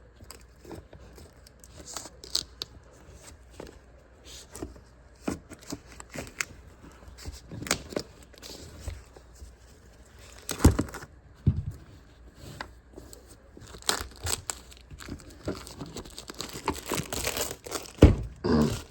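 Product packaging being torn and crinkled open by hand, with scattered clicks and rustles and a few sharp knocks as the box is handled.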